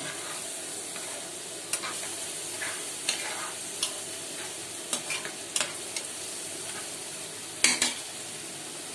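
Sliced onions and spices sizzling in oil in a non-stick pan while a spatula stirs them. Several sharp scrapes and knocks of the spatula against the pan break the steady sizzle, the loudest near the end.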